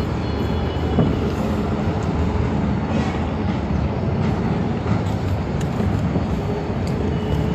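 Fishing boat's engine running steadily, a low rumble, with a few light knocks from fish being moved in a plastic cooler.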